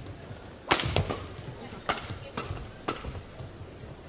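Badminton rackets striking the shuttlecock during a doubles rally: a series of sharp, crisp hits about half a second to a second apart, the loudest about a second in.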